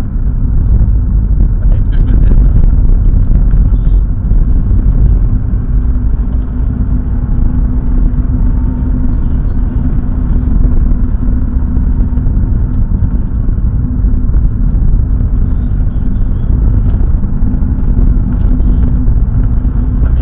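A car being driven, heard from inside the cabin: a steady, loud low rumble of engine and road noise.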